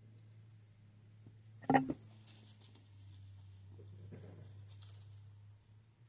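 A sharp knock of a hard resin piece against the table about two seconds in, then a few seconds of light scratchy rubbing, typical of hand-sanding the back of a resin casting. A low steady hum runs underneath.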